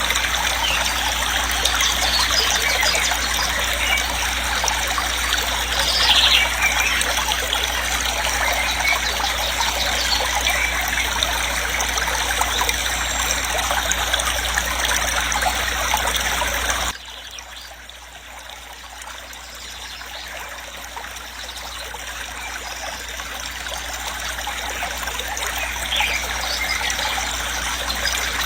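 Rushing water of a waterfall, a steady even noise. A little over halfway through it suddenly drops much quieter, then slowly grows louder again.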